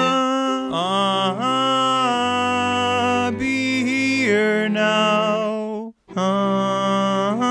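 A male tenor voice singing a slow choral line in long held notes with upward slides between them, over lower held parts. The sound cuts out briefly about six seconds in, then the singing resumes.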